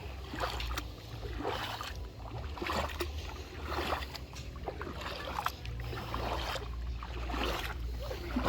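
Shallow mountain river water splashing and sloshing in repeated strokes about once a second, over a steady low rumble.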